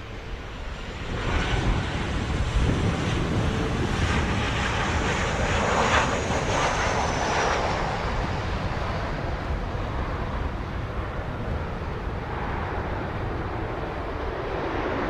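Southwest Airlines Boeing 737 landing: steady jet engine noise that swells about a second in, with a high whine falling in pitch around the middle.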